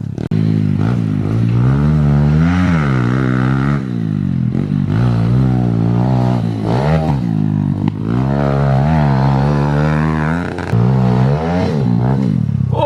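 Kawasaki KLX110 pit bike's single-cylinder four-stroke engine, through a cut-down Pro Circuit 450 exhaust, revving up and falling back over and over as it is ridden hard, with a brief cut in the sound just after the start.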